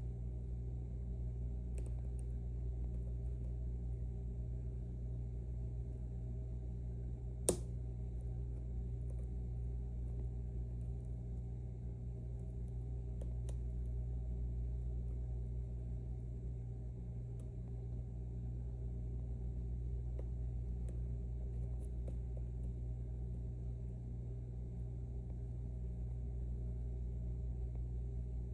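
Steady low hum with a single sharp metallic click about seven and a half seconds in and a few faint ticks, from a lock being worked with picking tools.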